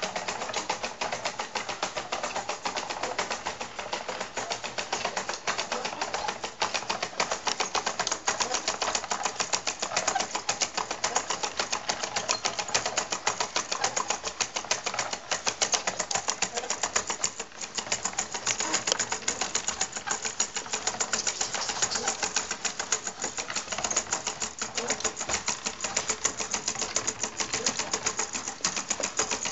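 Wooden and metal automaton mechanism worked by hand: gears, cams and levers clattering in a fast, continuous run of clicks.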